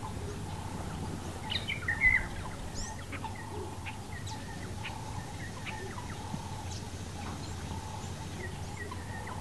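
Small birds chirping, with many short high calls scattered throughout and a louder cluster of twittering about two seconds in, over a steady low background hum.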